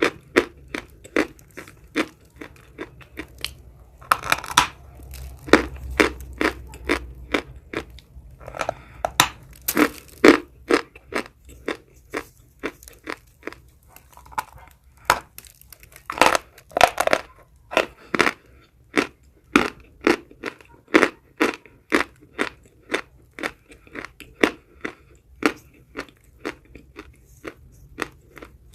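A person chewing chalk close to the microphone: a steady run of crisp crunches about two a second, with a few louder bursts of crunching here and there.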